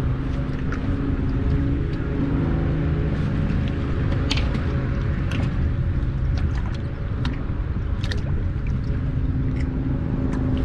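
Wind buffeting the microphone as a steady low rumble, with scattered light clicks and knocks of tackle being handled in an aluminum boat.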